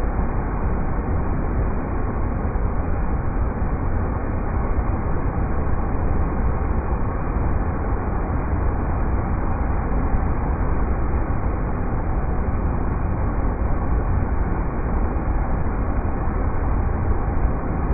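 River rapids rushing: a steady, unbroken wash of water noise with a deep rumble underneath.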